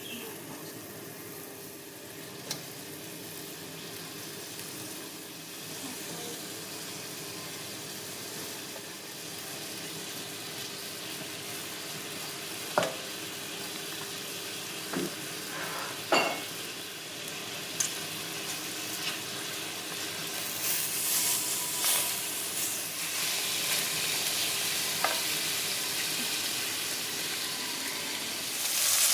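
Chicken pieces frying in melted butter in a pan: a steady sizzle, with a few sharp knocks against the pan around the middle. The sizzle grows louder and more crackly in the last third.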